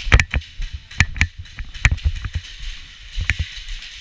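A run of sharp, irregular clicks and knocks, a few a second, in an indoor airsoft arena. The loudest come near the start, about a second in and just before the two-second mark.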